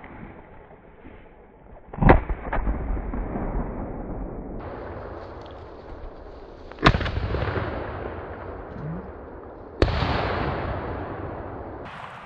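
Shotgun shots at a flushed covey of quail: three loud reports about 2, 7 and 10 seconds in, each dying away over a couple of seconds, with a fainter shot about half a second after the first.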